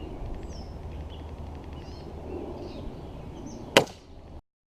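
A single sharp shot from a .177 break-barrel pellet rifle about four seconds in, over outdoor ambience with birds chirping; the sound cuts off suddenly half a second later.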